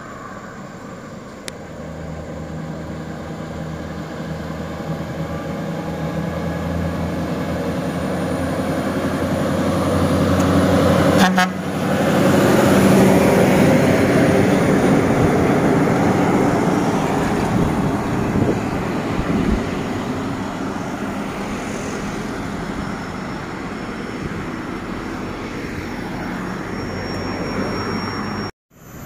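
Heavy Scania R580 V8 truck hauling a multi-axle trailer: its engine hum and tyre noise build as it approaches, are loudest as it passes close by, then slowly fade as cars follow.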